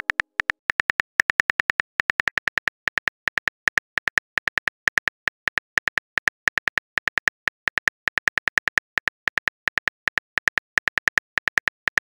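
Simulated phone keyboard typing clicks from a chat-story app: a quick, uneven run of short taps, several a second, as a message is typed out.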